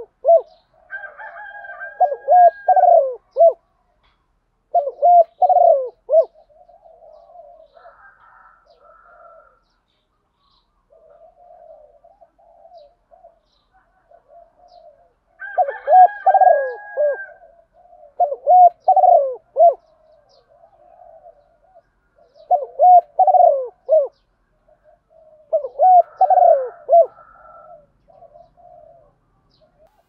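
Female spotted dove cooing in repeated loud phrases of a few notes each, in two bouts, with softer cooing in between. A thinner, higher drawn-out note sounds above the coos twice.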